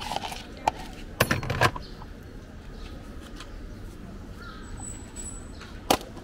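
Metal spoon knocking and clattering against a plastic cup as a street-food snack is mixed, with a burst of sharp taps about a second in and a single sharp knock near the end.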